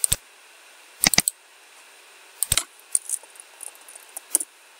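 A few sharp, isolated clicks at irregular intervals: keystrokes on a computer keyboard and mouse-button clicks, with a close pair of clicks about a second in.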